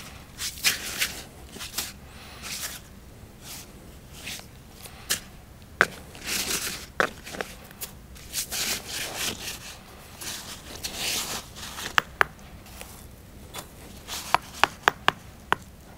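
Stone paving setts being handled in sand: scraping and rubbing as the blocks are shifted, with occasional sharp stone-on-stone knocks. Near the end comes a quick run of light hammer taps on a stone.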